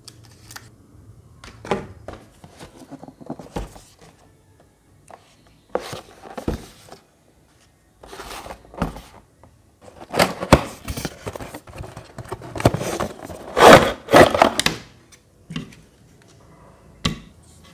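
Hands handling small plastic desk fans and a cardboard box: scattered knocks and clatter with bursts of scraping and rustling, densest and loudest about ten to fifteen seconds in.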